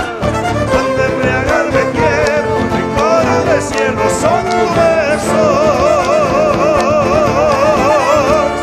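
Live Argentine folk band playing with violins and strummed guitars over a beat. Near the end the violins hold a long note with strong vibrato.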